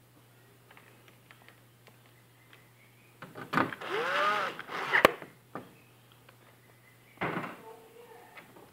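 Handling sounds as a TV's power supply board is fitted back into its metal chassis and screwed down: scattered knocks and clatter. A short rising-and-falling tone comes about four seconds in, and a sharp click just after is the loudest sound.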